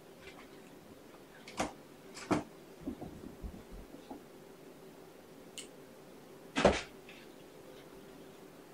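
Scattered knocks and thumps of kittens playing with toys and jumping on cat furniture, the loudest about two-thirds of the way through, over a faint steady room hum.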